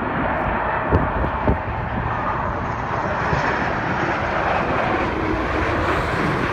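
Porter Airlines Embraer E195-E2 on landing approach passing low overhead, its Pratt & Whitney geared turbofan engines making a steady jet noise that builds slightly as the plane nears. A couple of soft knocks about a second in.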